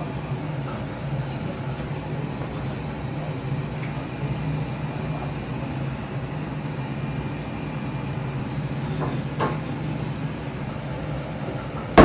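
A steady low hum of kitchen ambience with a faint sizzle from the teppanyaki griddle under the seared wagyu, a couple of faint clicks, and a sharp knock at the very end.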